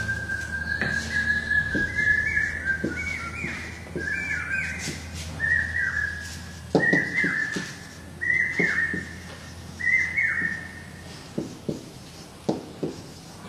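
High whistled notes: one held, slightly rising tone at first, then a run of short notes that each slide down, repeating about once a second. A few soft knocks sound in the second half.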